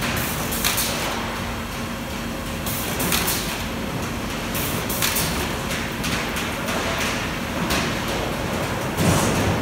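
Iowa Precision coil-fed sheet-metal duct line running: a steady mechanical rumble with sharp metallic knocks every second or two, and a heavier thump near the end.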